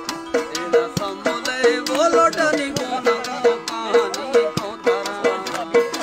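Balochi folk music for the chap circle dance: a steady percussive beat of about two to three strokes a second, a repeated low note, and a winding melody line over it.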